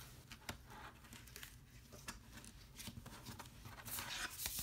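Faint handling of a paper insert and a metal steelbook Blu-ray case: light rustling and small clicks as the insert is slid into the case and the case is lifted, with a louder rustle near the end.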